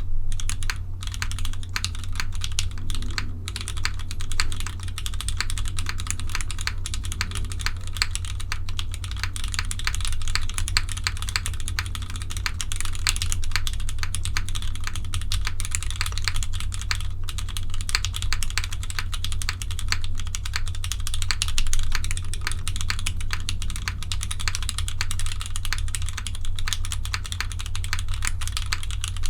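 Continuous fast typing on a gummy O-ring-mounted 60% keyboard with broken-in, stem-lubed Cherry MX Black linear switches on an aluminum plate and GMK keycaps, a dense run of keystroke clacks with no pauses. A steady low hum sits underneath.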